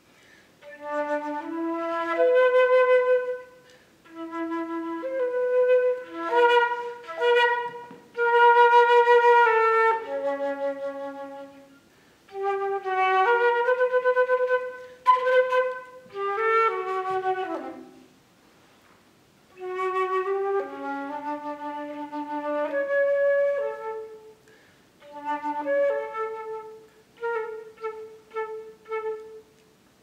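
Solo concert flute playing short melodic phrases based on bird calls, with some notes sliding down in pitch. There is a brief pause a little past the middle.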